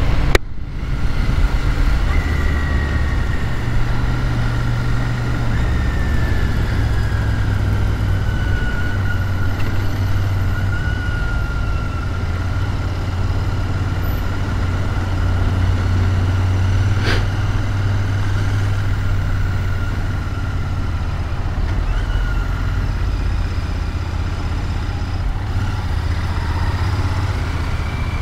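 Motorcycle engine running steadily under way, heard from the rider's seat with road and wind noise, and a faint whine that slowly falls in pitch over the first half. A single sharp click about seventeen seconds in.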